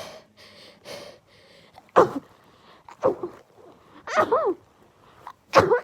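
A person in a sneezing fit, sneezing repeatedly. Sharp, sudden sneezes come about two seconds in and again near the end, with a smaller one and a voiced, wavering catch of breath between them.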